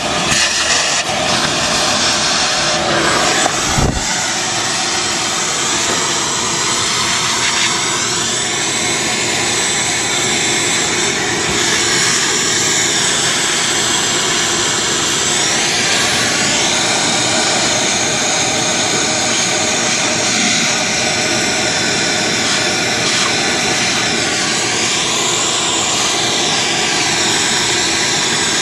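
Wet/dry shop vacuum running steadily with a whining hum, sucking engine oil, its pitch shifting a little as the suction load changes. A single sharp knock about four seconds in.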